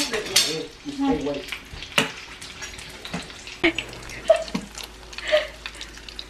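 Tableware clinking at a meal: spoons and bowls knocking together in a few sharp clinks, amid a steady rustle, with low voices murmuring.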